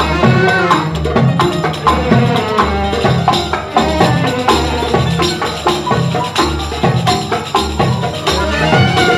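Instrumental interlude of a Khaleeji (Gulf Arabic) song: a string section led by violins playing the melody over a steady percussion beat.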